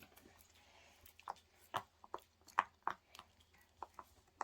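Soft, irregular clicks and taps of small plastic toys and packaging being handled, about a dozen over a few seconds.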